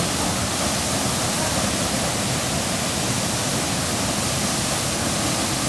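Waterfall pouring into a pool, a steady loud rush of falling water.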